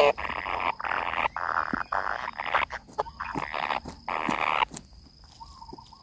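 Kingfisher nestlings calling in the nest: a quick run of short, harsh, buzzy calls that dies down near the end.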